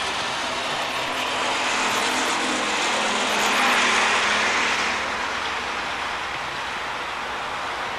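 A vehicle passing: a broad rushing noise that swells to a peak about four seconds in, then fades.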